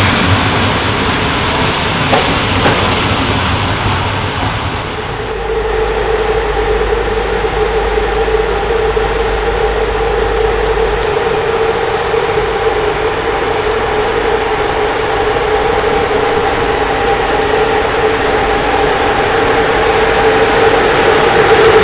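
Railway coaches rumbling along the platform, then a CFR LE 5100 kW (060-EA family) electric locomotive standing at the head of its train with its equipment running: a steady electric hum with a held mid-pitched tone and, for a few seconds, a deep low rumble underneath.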